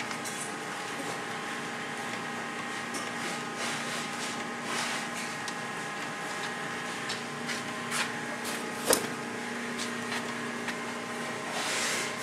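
Steady background hum, with faint rubbing, scuffing and light clicks of a rubber seal being pressed by hand into the channel along the top of a side-by-side's door frame. A sharper click about nine seconds in and a louder brief rustle near the end.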